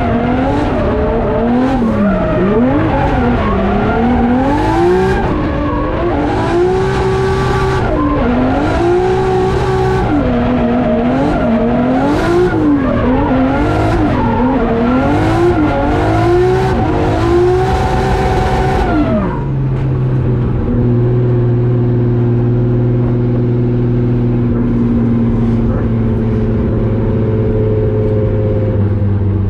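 Turbocharged 1JZ straight-six in a drift-built Nissan 240SX revving up and down over and over, with repeated bursts of tyre squeal. About two-thirds of the way through the revs drop and the engine settles to a steady low running note.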